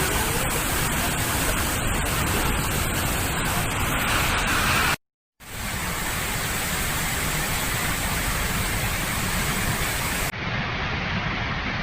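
Waterfall rushing, a steady loud noise of falling water. It cuts out for a split second about five seconds in, then carries on, sounding duller near the end.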